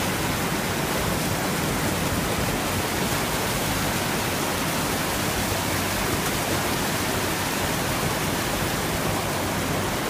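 Creek water pouring over a low concrete weir and churning in the pool below: a steady, even rush.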